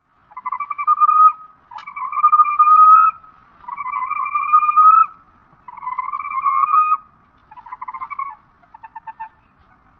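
Creature sound effect meant as the call of the extinct eastern moa: six drawn-out calls, each about a second long and rising slightly in pitch. The last two are shorter and break into quick pulses.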